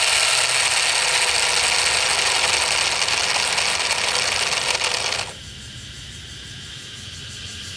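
Miniature plastic model of a single-cylinder diesel engine running, its flywheel spinning with a steady mechanical whir that stops abruptly about five seconds in.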